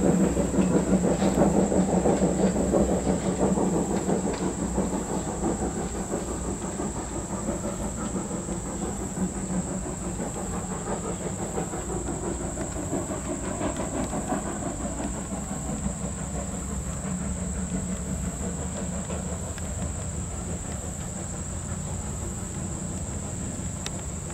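Norfolk and Western #475 steam train running away into the distance, its steam and the clatter of wheels on the rails fading steadily.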